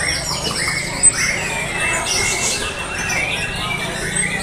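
Several white-rumped shamas (murai batu) singing at once in a contest round, many overlapping whistled and trilled phrases, with one sharp click about a second in.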